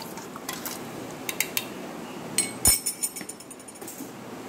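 Metal spoon clinking against a stainless steel mixer-grinder jar while stirring curd and water, a few scattered light clinks with one louder knock a little under three seconds in.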